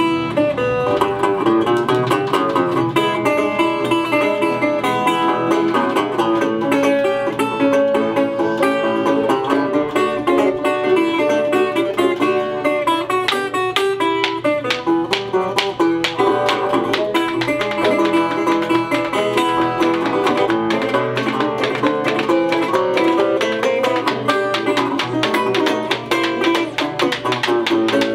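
A live string trio plays an upbeat instrumental. Banjo and resonator guitar are picked over a washboard's scraped and tapped rhythm.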